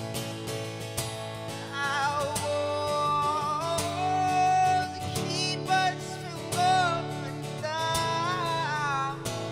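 Acoustic guitar strummed in a steady rhythm, with a man singing long, wavering held notes over it from about two seconds in until shortly before the end.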